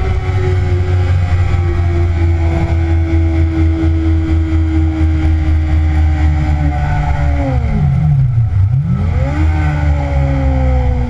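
2009 Kawasaki ZX-6R's inline-four engine running hard on a race track, heard from the bike with heavy wind rumble. Its note holds high and sags slowly, then about three-quarters of the way through dives steeply and climbs straight back up within about two seconds.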